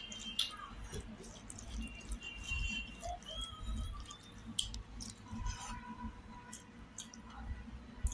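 Fingers kneading and mixing cooked rice with lentil dal on a plate: soft squishing with light scattered clicks.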